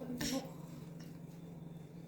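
A brief voice sound a fraction of a second in, then a steady low hum.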